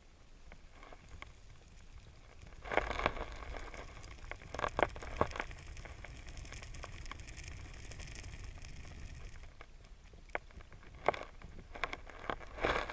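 Creek water heard underwater: a low steady rush with scattered clicks and crackles, and louder crackling flurries about three and five seconds in and again near the end.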